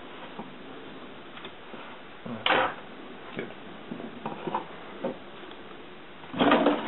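Handling noise as a corrugated-plastic model yacht hull is lifted out of a wooden measuring box: small knocks and scrapes of plastic against wood, with two louder brief scrapes, one about two and a half seconds in and one near the end.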